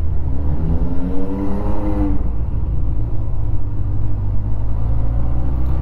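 Honda Hornet motorcycle engine pulling under acceleration, with a pitched note that rises gently for about two seconds and then drops away, over a steady low rumble of engine and road noise while riding.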